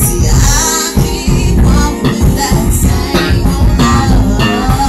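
Live band playing loudly, with a singer's voice over a heavy bass and a steady beat.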